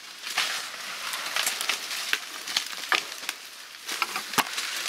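Footsteps crunching and rustling through dry leaf litter and brush, with a series of sharp twig snaps.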